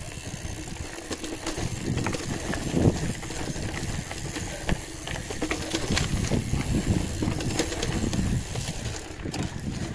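Wind rumbling over the microphone of a moving rider, with road noise and scattered small clicks and knocks.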